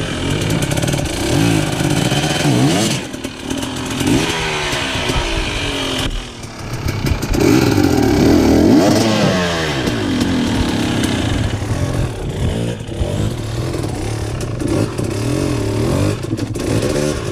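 Off-road motorcycle engine revving up and down in repeated throttle bursts as the bike climbs a rocky waterfall, loudest about halfway through.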